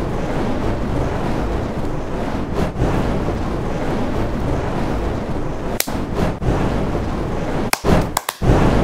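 Fireball sound effect: a steady rushing noise of burning flames, cutting out briefly a few times, near three and six seconds in and twice near the end.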